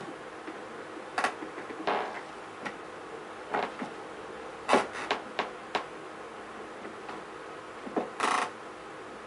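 Scattered short clicks and knocks, about a dozen, the loudest about five seconds in and near the end, over a faint steady hum.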